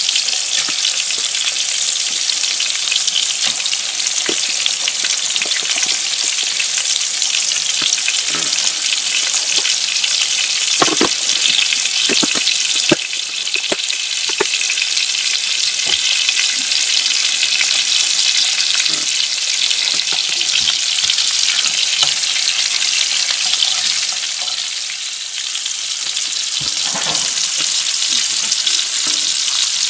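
Slices of sausage sizzling steadily in oil in a hot frying pan, with occasional short clicks and pops.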